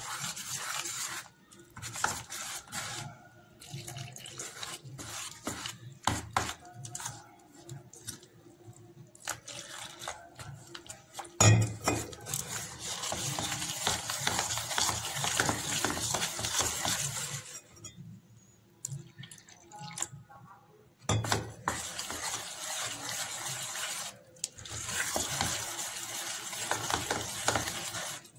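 Metal spoon stirring and scraping in a stainless steel bowl, beating flour, egg and water into a thin, wet batter. It goes in short clinks against the bowl broken by longer stretches of fast, splashy mixing.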